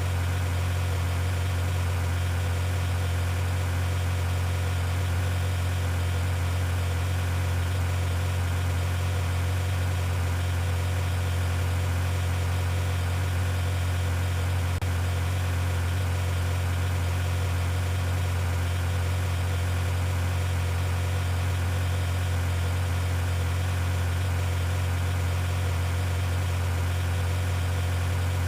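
A vehicle engine running steadily, a constant low hum with no change in pitch or loudness.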